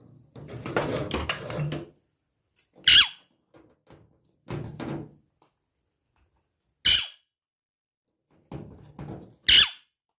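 Indian ringneck parrot giving three short, shrill calls that slide down in pitch, between bouts of clattering and knocking as it plays with its toys.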